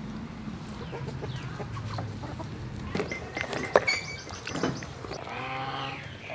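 Chickens clucking, with a few sharp clicks and one loud knock a little before four seconds in.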